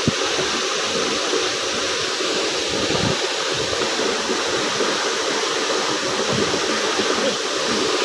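Waterfall: falling water hissing steadily, with a brief thump at the very start.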